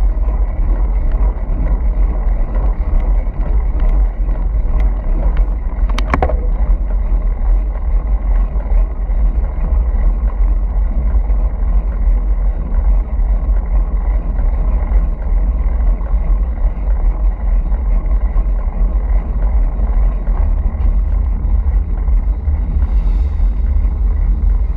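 Motorcycle riding at steady speed: engine drone mixed with heavy low wind rumble on the microphone, with a single sharp click about six seconds in.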